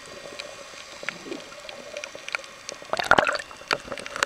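Underwater sound picked up by a snorkeling camera: scattered clicks and crackles over a faint steady hum, with a short loud burst of bubbling and crackling about three seconds in.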